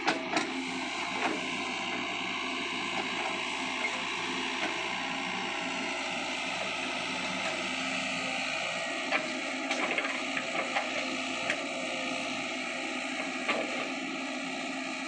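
Sany SY55C mini excavator's diesel engine running steadily under working load as the machine digs, with several short sharp knocks in the second half.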